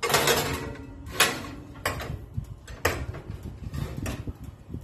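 Metal roasting tray scraping onto an oven's wire rack with a short ringing scrape, then three sharp clanks as it is pushed further in.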